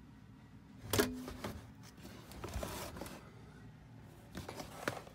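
Plastic cassette dictation machines being handled: a sharp clack about a second in, then rustling and scraping, and a few more clicks near the end.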